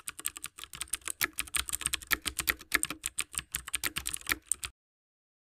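Keyboard typing sound effect: a fast, uneven run of key clicks that stops abruptly about four and a half seconds in.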